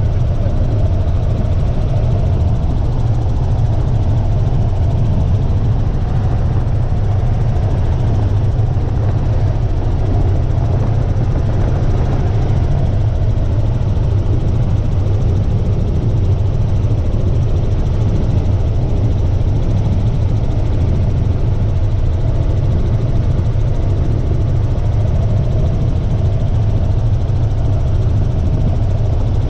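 Helicopter engine and rotor noise heard from inside the cabin, a loud steady low drone.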